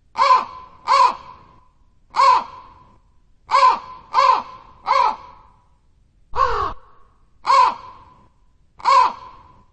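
A crow cawing: about nine harsh caws, each short, in loose groups of one to three, with short pauses between them.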